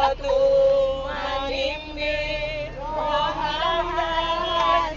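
Women singing together, holding long notes that step from pitch to pitch, over a steady low rumble from the bus.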